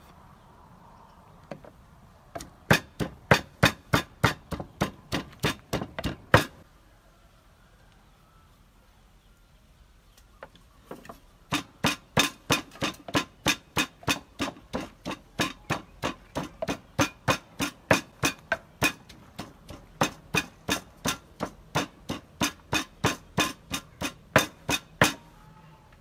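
Wooden pestle pounding ingredients in a wooden mortar: steady knocks about three or four a second, in two runs with a pause of about five seconds between them.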